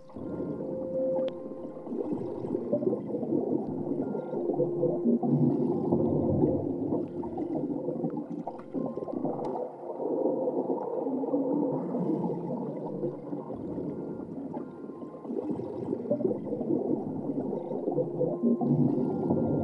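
Underwater-style sound-design soundscape: dense low gurgling and bubbling under drawn-out moaning tones. It starts abruptly and swells and ebbs throughout.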